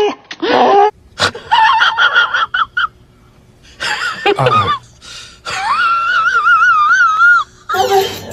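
A Siberian husky howling and making short pitched yowling calls for the first few seconds. After a brief pause, a long wavering pitched tone follows.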